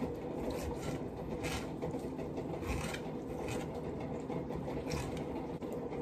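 Small kitchen knife scraping and cutting through a piece of food held in the hand: a handful of short, irregular scrapes over a steady hum.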